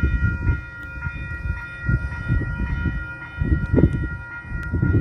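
Freight locomotive air horn held in one long, steady chord of several notes at once, over an uneven low rumble.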